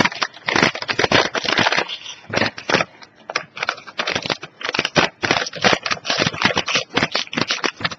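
Plastic snack bag crinkling as it is handled, with dry crunchy pea snacks rattling inside, in quick irregular crackles.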